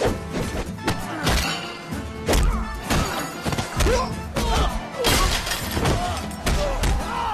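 Movie fight sound effects: a rapid string of punch and body-blow hits with crashing impacts, over loud action background music.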